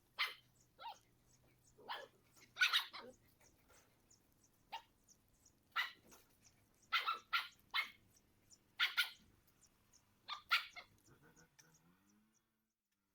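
A dog barking repeatedly, single barks and short runs of two or three, with pauses between.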